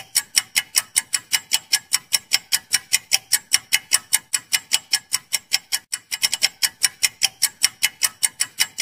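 Clock-ticking sound effect for a quiz countdown timer: fast, even ticks, about five or six a second, stopping suddenly near the end as the countdown finishes.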